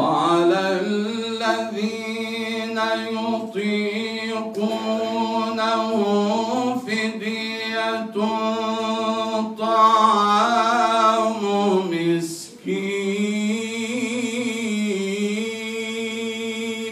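A man reciting the Quran in the melodic, chanted style, holding long notes with ornamented turns in pitch. He breaks once for breath about twelve seconds in.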